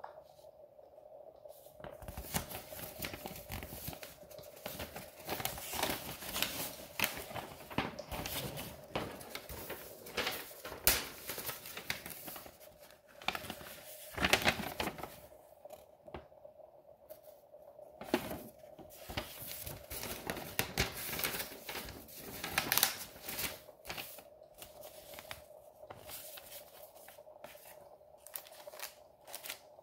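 Paper model-kit instruction sheet being handled and turned, rustling and crinkling in irregular bursts that start about two seconds in, over a faint steady hum.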